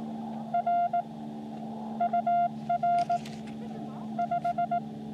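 Morse code (CW) beeps from a ham radio transceiver: groups of short and long tones at one steady, fairly high pitch, keyed in four bursts with gaps between them, over a steady low hum and receiver hiss.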